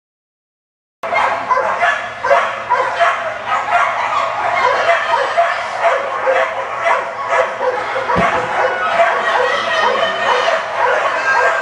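Many dogs at a flyball race barking nonstop, with the barks overlapping into a continuous din that starts suddenly about a second in.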